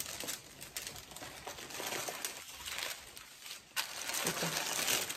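Thin plastic shopping bag and plastic pastry wrappers rustling and crinkling as they are handled, with a louder crinkle about four seconds in.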